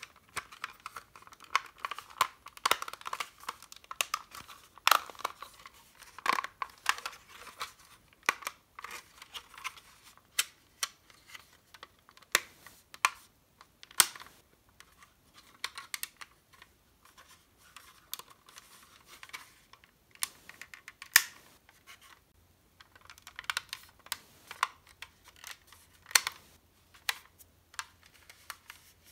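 Hard plastic parts of an Academy Phoenix model kit clicking, tapping and rubbing as they are handled and pressed together, in irregular sharp clicks with a couple of louder snaps about 14 and 21 seconds in.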